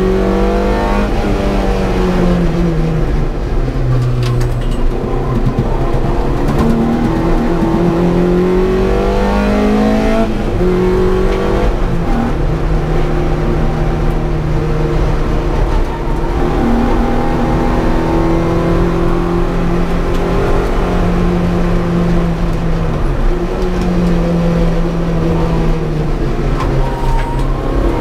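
Opel Corsa's C20XE 2.0-litre 16-valve four-cylinder engine heard from inside the cabin, pulling hard at high revs; its pitch climbs under full throttle and drops sharply at several gear changes and lifts off the throttle.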